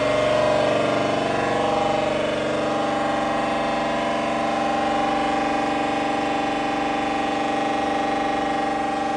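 Siemens Magnetom Aera 1.5-tesla MRI scanner running an imaging sequence: a loud, steady buzzing hum of several tones from the gradient coils. The pattern changes about two and a half seconds in and settles on a higher steady note.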